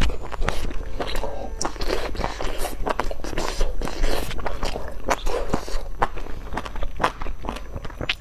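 Close-up eating of crispy pan-fried dumplings: crunchy bites and chewing, with sharp irregular crackles several times a second.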